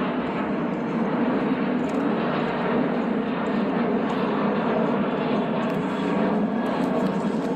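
Airplane flying overhead: a steady, loud rushing engine noise.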